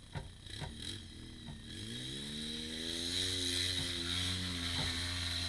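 Side-by-side UTV engine revving up about two seconds in, its pitch climbing and then holding steady as it runs on, with a hiss over it; a few knocks come in the first second and a half.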